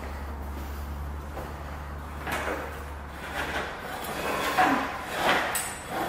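Café chairs being pulled out and dragged across a tiled floor as people sit down at a table: several separate scrapes and knocks in the second half, with short squeaks from the chair legs.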